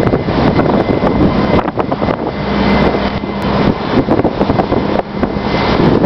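Strong wind buffeting the camera microphone in gusts. A brief low hum runs underneath about two seconds in.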